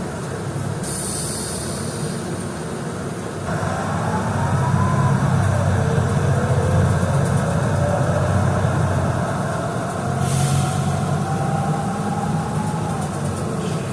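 A transit vehicle running close by: a low rumble that grows louder a few seconds in, with a motor whine that rises, drops, then climbs slowly. Two short hisses come through, one near the start and one about ten seconds in.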